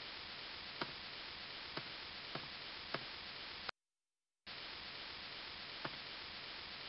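Steady microphone hiss with single sharp clicks from a computer mouse: four in the first three seconds and one more near the end, as slide bullets are revealed and the slide advances. Midway the hiss drops out to dead silence for under a second.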